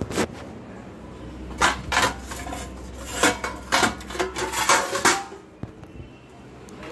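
Steel plate and spoon clinking and knocking several times as they are handled.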